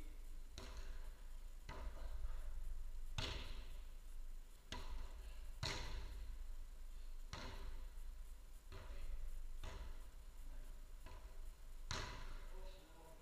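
A footvolley ball being struck again and again by players' feet, heads and chests during a rally. There are about ten sharp thumps, roughly one every second or so, each echoing in a large hall.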